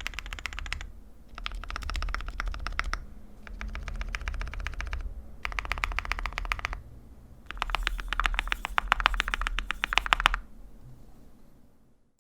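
Typing on a mechanical keyboard fitted with lubed Gateron Black Ink linear switches in an aluminium plate, under PBT keycaps. It comes as five runs of rapid keystrokes with short pauses between them.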